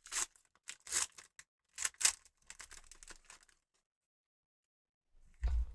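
Foil booster pack wrapper being torn open and crinkled, with three or four short, sharp rips in the first two seconds and fainter rustling after. A low muffled bump near the end.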